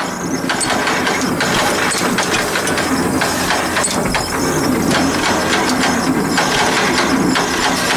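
Old John Deere tractor engine running with a steady, loud mechanical clatter.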